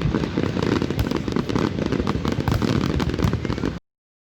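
Fireworks going off in a dense, continuous crackle of pops and bangs over a low rumble, cutting off suddenly near the end.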